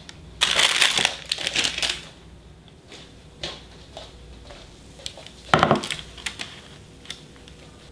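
Kitchen handling noise: a burst of rustling and rattling as a parchment-lined sheet pan is picked up, then a few light clicks. About five and a half seconds in comes a sharper knock as the metal sheet pan is set down on a wooden cutting board.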